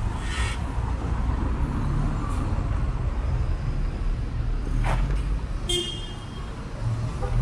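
Street traffic: a steady low rumble of car engines, with three brief sharp sounds, the one about six seconds in carrying a short high tone.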